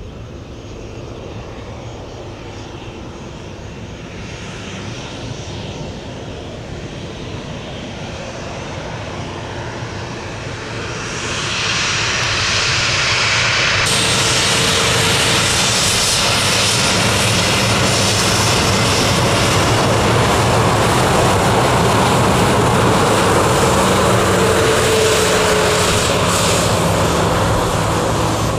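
Jet airliner's engines growing louder as it comes closer, then holding at a loud, steady level from about eleven seconds in, with a few steady engine tones under the noise.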